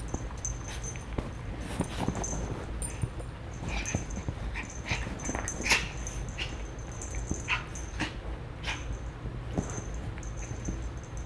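Two small dogs play-fighting: short yips, whimpers and play growls come in irregular bursts among the scuffling of paws on a couch cushion. The loudest burst falls a little past halfway through.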